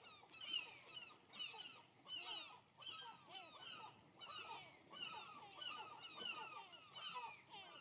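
Faint background sound effect of a flock of birds calling: many short calls, each rising and falling quickly in pitch, overlapping and repeating about twice a second.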